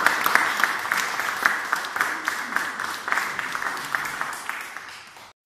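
Audience applauding, many hands clapping, dying away gradually before cutting off abruptly near the end.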